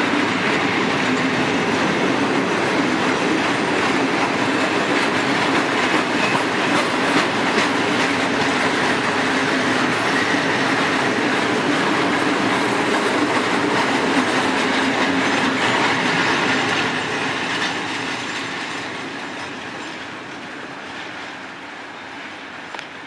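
Freight train of loaded fuel tank wagons rolling past close by, the wheels clattering steadily over the rails. About three-quarters of the way through the last wagon goes by and the sound fades as the train moves away.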